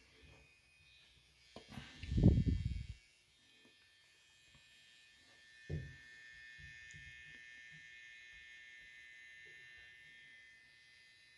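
NorthridgeFix Grinding Pen NF.V2's small motor running with a steady high whine, its abrasive tip grinding into the soft plastic body of a chip. A brief low thud about two seconds in, and a click just before the whine grows louder at about six seconds.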